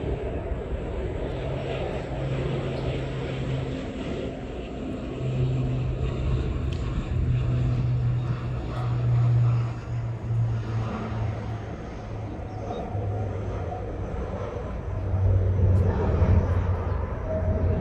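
A low, steady engine drone that swells and fades, loudest about nine seconds in and again near the end.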